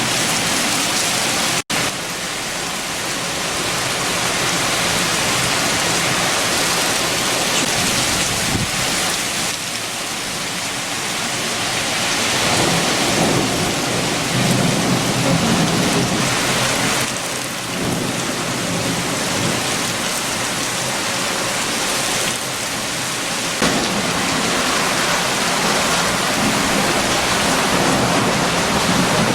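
Heavy, steady rain with strong wind, with deep rumbling swells rising and falling in the middle and toward the end. A split-second dropout in the sound about two seconds in.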